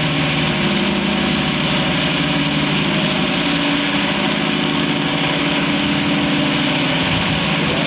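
Large gas-fired cotton candy machine running: the motor spins the head at a steady speed as the sugar floss starts coming out, a constant hum over a rushing noise.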